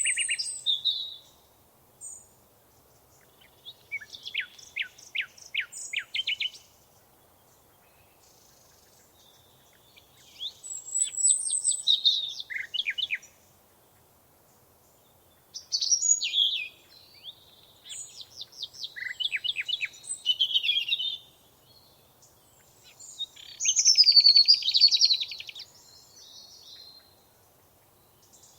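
Songbirds singing in short phrases of chirps and fast trills, each a second or three long, separated by pauses. The loudest is a rapid trill near the end.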